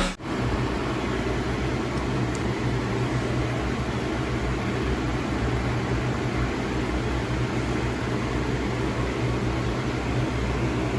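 Steady low hum with an even hiss over it, like a machine or appliance running.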